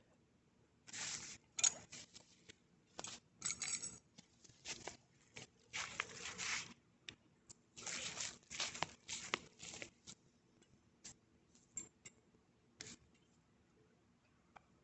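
Hands and tools working on bicycle parts: irregular scraping and rustling with scattered sharp clicks, thinning out over the last few seconds.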